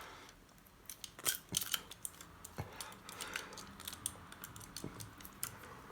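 Small metallic clicks and taps, scattered and irregular, of a pair of handcuffs being handled and picked with lockpicking tools.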